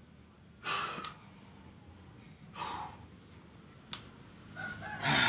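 A man breathing hard, out of breath after a set of strokes on a hand pump: two heavy breaths about two seconds apart, then a sharp click near four seconds in.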